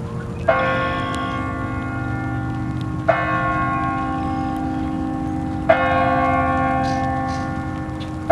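A large tower bell struck three times, about two and a half seconds apart, each stroke ringing on with a rich hum that overlaps the next.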